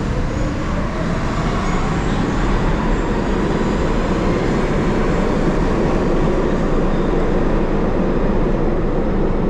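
New York subway train running through the station on a nearby track: a loud, steady rumble, with a motor whine rising in pitch near the start.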